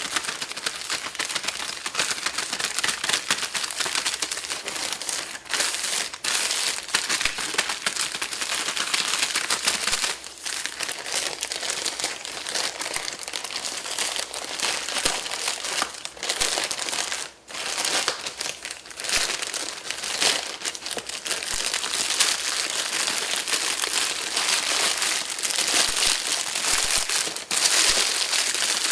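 Grey plastic poly mailer bag crinkling and rustling as hands rub, squeeze and tug at it to open it, close to the microphone. The crinkling is nearly continuous, with a few short breaks.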